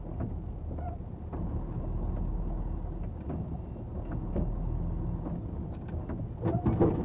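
Engine and road noise inside the cab of a large vehicle on the move: a steady low rumble with occasional small rattles. Louder, irregular noise starts near the end.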